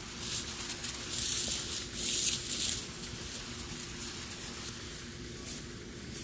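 Two bursts of hissing spray from a sprayer nozzle putting out machine-oil emulsion, about a second in and about two seconds in, over a faint steady hum.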